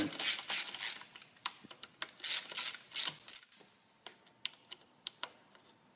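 Irregular metal clicks and ticks of a hand hex driver turning and seating the screws on a motorcycle clutch pressure plate, densest in the first second and again around two seconds in, then thinning to a few scattered ticks.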